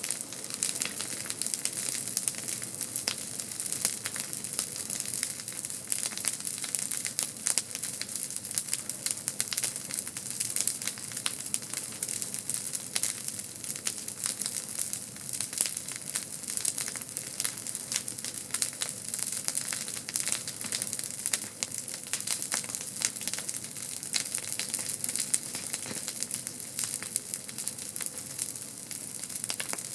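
Campfire burning with a dense, steady crackling and sizzling of wood.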